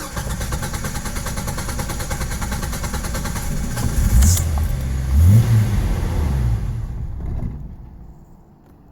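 A Jeep Cherokee engine cranking on the starter with an even rhythmic chugging. About four seconds in it briefly catches and rises and falls in speed, then it dies away near the end. This is the no-start fault that a new PCM has not cured.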